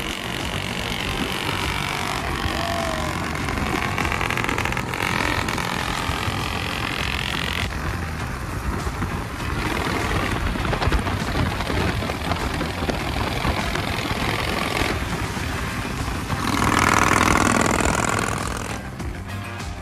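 Chopper motorcycles running at road speed: a steady engine rumble mixed with road and wind noise. It swells louder for a couple of seconds near the end.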